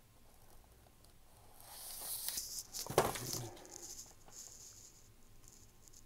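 Tissue paper rustling and crinkling as it is lifted out of a shoebox and moved aside, with one sharp tap about three seconds in.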